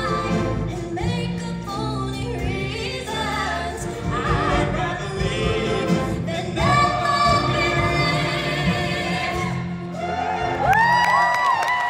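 High school show choir singing in full voice. Near the end the voices slide up into long held notes.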